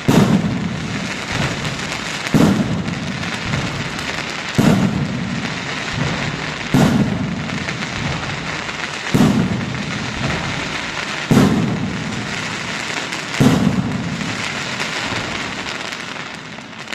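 Aerial firework shells bursting at a display: seven sharp booming reports about two seconds apart, each trailing off in a rumble, over a steady noisy din between the bangs.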